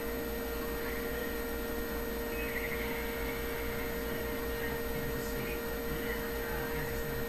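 Steady electrical hum with a faint high-pitched whine from a CRT television set whose sound is turned down.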